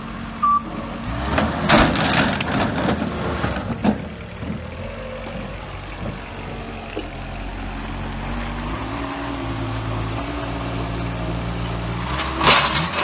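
Truck-mounted forklift engine running steadily while the machine tips over under its load, a loud clattering crash of the forklift and its plastic pipes about a second in that lasts a couple of seconds. A second burst of clatter comes near the end.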